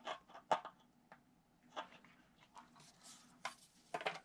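Light handling noise: about half a dozen short clicks and taps, with faint rustling between them, as hands move a model airplane tail surface and a clear plastic square to check that the hinge is square.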